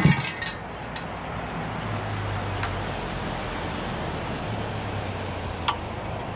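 Steady road traffic noise with a vehicle's low drone through the middle. Over it come a few short sharp clicks as small caps are pressed onto the bolt ends of a metal mailbox-post bracket, the loudest a knock right at the start.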